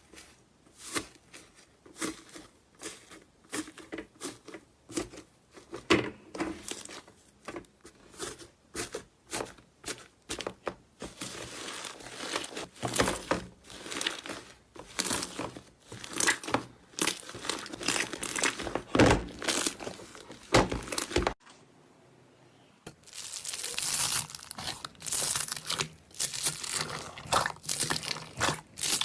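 Slime being squeezed and stretched by hand, with dense, irregular crackling and popping and a short pause about two-thirds of the way through.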